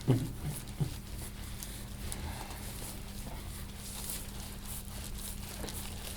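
A short pained grunt from a patient under a deep tissue massage, dropping in pitch, right at the start, with a second smaller grunt just under a second in. A steady low hum and faint crackly rubbing of hands on skin continue beneath.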